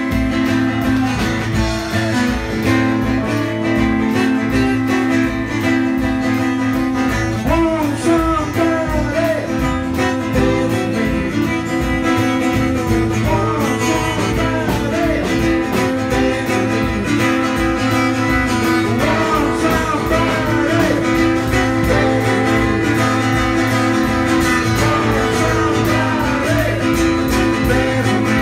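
Live rock and roll band playing: hollow-body electric guitar and acoustic guitar over a drum kit keeping a steady beat, with a melody line wavering in pitch over the chords.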